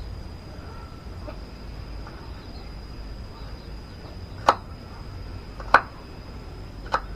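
Knife chopping a hard noni fruit into small pieces: three sharp knocks a little over a second apart in the second half, over a faint steady high whine.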